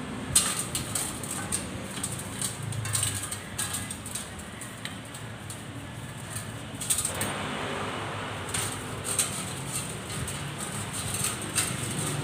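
A paintbrush scrubbing oily motorcycle clutch parts in a bucket of liquid, with repeated short clicks and clinks of the metal parts knocking against the bucket and a steel tray, over a low background hum.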